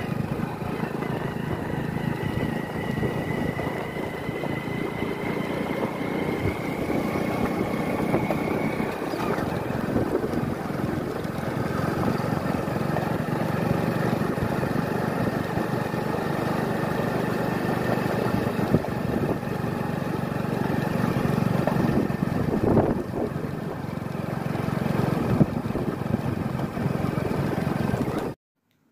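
Motorcycle engine running steadily while riding along, heard from the rider's seat; the sound cuts off suddenly near the end.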